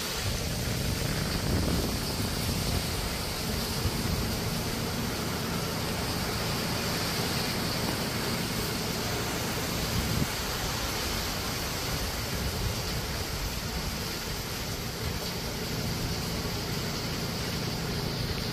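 Steady heavy typhoon rain falling on trees and foliage: an even hiss with an uneven low rumble beneath it.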